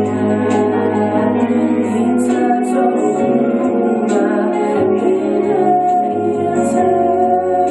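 Solo voice singing a slow song, holding long notes, over an instrumental backing with a steady bass.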